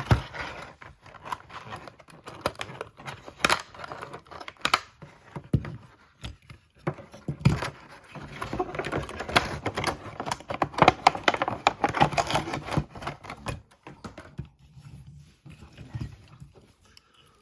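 Plastic blister packaging and cardboard backing card of a Hot Wheels diecast set being opened by hand: irregular crinkling, rustling and clicks, busiest about halfway through and thinning out near the end.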